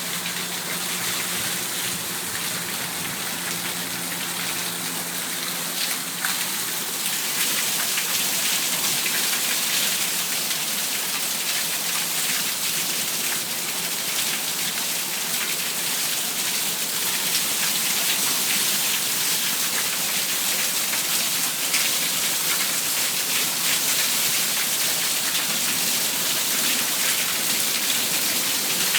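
Heavy rain pouring and splashing, with water running off overflowing gutters onto a balcony: a steady rushing hiss that grows a little louder about seven seconds in. A low hum sounds underneath for the first several seconds, then stops.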